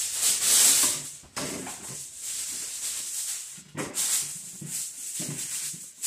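Aluminum foil crinkling and rustling as a sheet is pulled out and handled, in several bursts, loudest in the first second.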